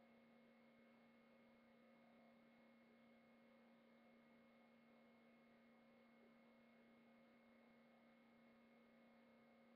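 Near silence: a faint steady hum with a few thin steady tones over a low hiss.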